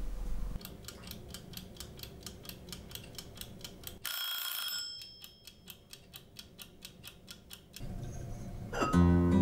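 A cat's purr for a moment, then a clock ticking quickly and evenly, with one short bell-like ding about four seconds in and the ticks fainter after it. Acoustic guitar music comes in near the end.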